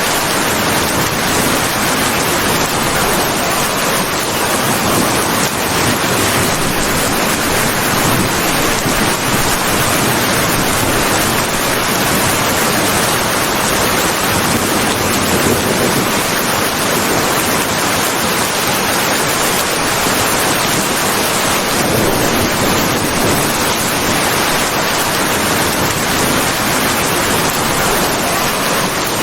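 Steady rain, an even hiss of falling water with no thunder.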